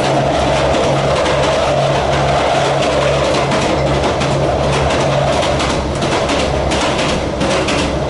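Diesel passenger train running at line speed, heard at the gangway between carriages: a steady rumble of wheels on rail with a low engine hum that pulses about twice a second, and light clatter from the track.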